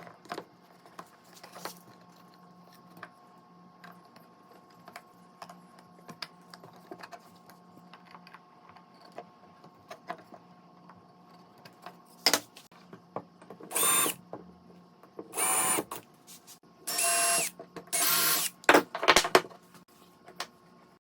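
Light clicks and knocks of wood and tools being handled, then a small power tool runs in four short bursts of about half a second to a second each, in the second half.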